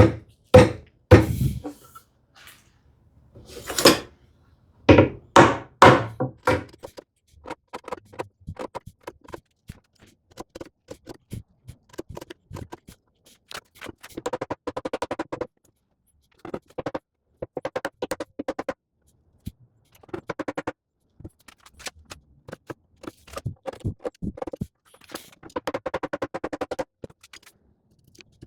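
Hand woodworking on a dovetail joint: several heavy wooden knocks in the first few seconds, then short bursts of quick, rapid strokes from a hand tool working the wood, each burst lasting one to three seconds with pauses between.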